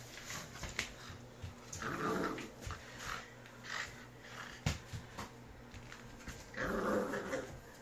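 Puppy growling in two bursts while tugging on a blanket, with scattered clicks on a wooden parquet floor and one sharp knock a little past the middle.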